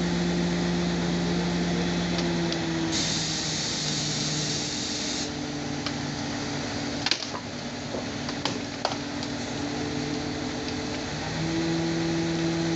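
A Fuso crane truck's engine and hydraulics run steadily under load with a constant pitched drone. The pitch drops slightly about two and a half seconds in and rises back near the end. A brief high hiss lasts about two seconds from around three seconds in, and a few sharp clicks and knocks come in the middle.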